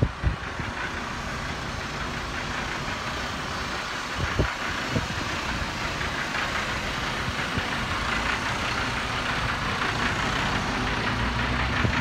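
Mercedes-Benz Arocs 4142 concrete mixer truck's diesel engine idling steadily, under a hiss of outdoor noise, growing slightly louder near the end. Two short knocks about four and five seconds in.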